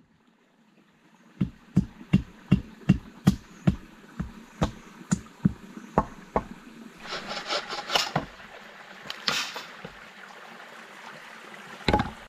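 Hatchet strokes into wood and earth, about fifteen sharp knocks at roughly three a second that grow fainter. Then a rustle and crackle of twigs and leaves, and near the end a single heavy wooden thump as a log is set down on another log.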